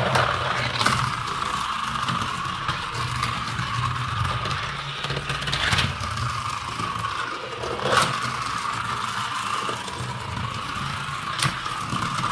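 Battery-powered toy safari car driving along a flexible plastic track, its small electric motor whirring steadily, with four sharp clicks along the way.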